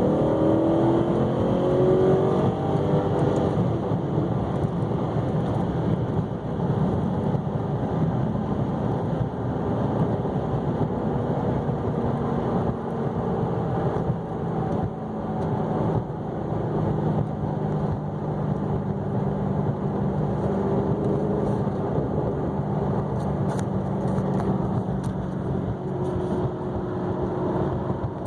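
2009 Maserati GranTurismo S's 4.7-litre V8 and exhaust under way, the revs rising for the first few seconds after a downshift, then running at a steady pitch while the car drives on.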